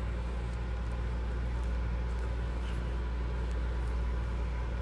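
Steady low background hum with a few faint light ticks.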